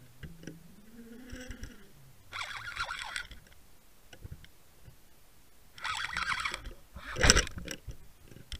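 Underwater rushing, splashing noise in two bursts of about a second each, then a sharp knock about seven seconds in, as a hooked pike thrashes on the line.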